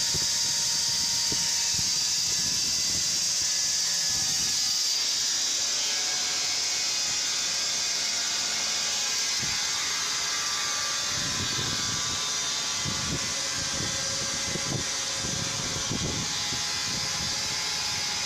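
Sawmill machinery running with a steady high hiss and whir, with a few dull knocks in the second half.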